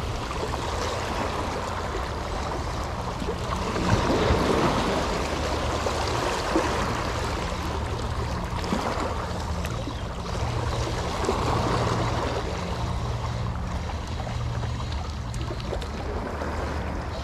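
Small waves washing against the breakwater rocks, with wind on the microphone and a low steady hum underneath.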